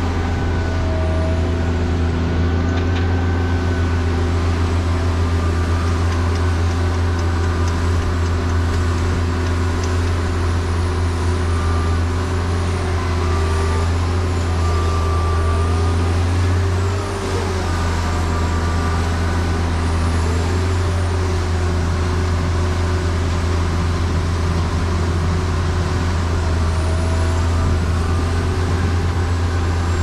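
Heavy diesel farm machinery running steadily with a deep drone, with faint whines rising and falling over it and a brief dip in the engine note about halfway through.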